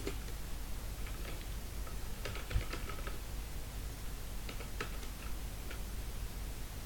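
Computer keyboard keys clicking as commands are typed, in three short bursts of keystrokes over a steady low hum.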